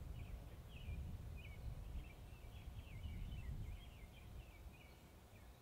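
Quiet outdoor background with faint bird song, a string of short high chirping notes, over a low rumble.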